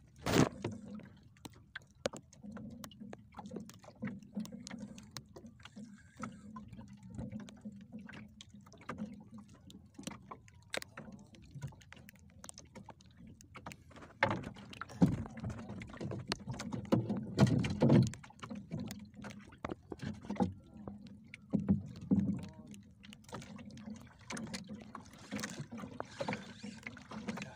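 Water lapping and slapping against the hull of a small fishing boat, with scattered knocks and clicks from the boat and gear, louder and busier in the second half.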